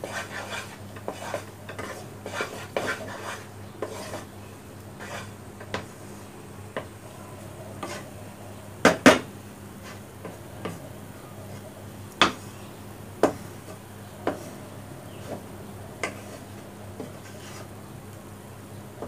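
Wooden spatula stirring and scraping a stiff mass of cooked milk-powder dough around a nonstick kadai. Quick strokes at first, then single sharp knocks of the spatula on the pan every second or two, the loudest a double knock about nine seconds in.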